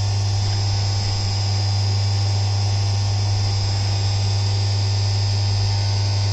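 Home-built CNC vertical mill running a finishing pass on an aluminium engine case under coolant spray: a steady low hum with an even high-pitched whine above it.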